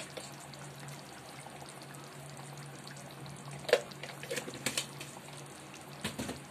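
Rohu fish curry in yogurt gravy simmering in a kadai, with scattered bubbling pops and crackles, the loudest a little over halfway through. A steady low hum runs underneath.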